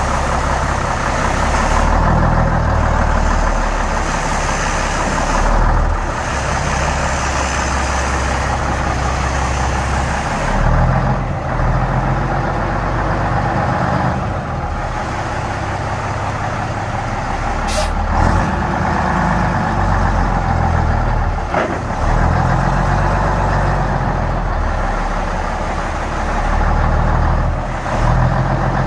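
1961 Mack B-61's Thermodyne 711 diesel engine running as the truck moves at low speed, its revs rising and falling again and again. A brief hiss of air comes a little past the middle.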